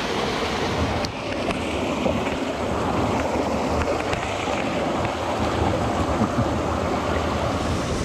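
Mountain stream rushing over boulders and small cascades: a steady, loud wash of water.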